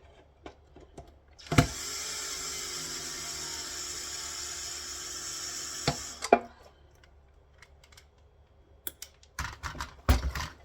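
Cordless drill-driver motor running for about four and a half seconds, its pitch sagging slightly, on a battery that is running down. Clicks and light knocks follow near the end.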